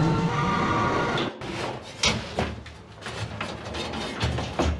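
Motor of a platform lift running with a steady whine, which stops about a second in. Scattered knocks and clatter follow as the trash can and broom are handled.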